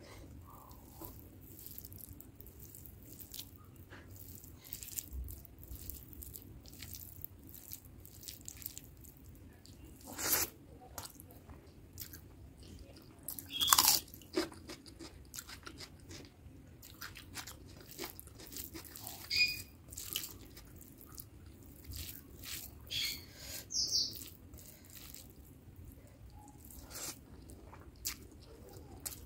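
Close-miked eating sounds: chewing and wet mouth sounds of rice and curry eaten by hand, broken by a few loud crunchy bites, one of them a bite into a whole raw onion about fourteen seconds in.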